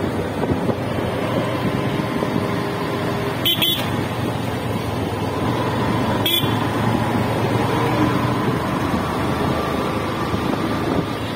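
Motorcycle engine running steadily while riding, with road traffic around. Two short sharp clicks come about three and a half and six and a half seconds in.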